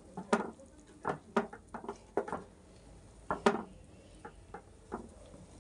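Wooden spatula stirring chicken pieces through a thick yogurt gravy in a pan: irregular soft knocks and scrapes against the pan, the loudest about three and a half seconds in.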